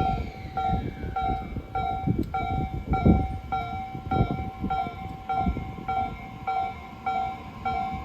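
Japanese level crossing's electronic warning bell ringing steadily, a repeating ding of several tones about every 0.6 s. Underneath, a passing electric train rumbles with irregular low knocks from its wheels, and a whine falls in pitch in the first two seconds.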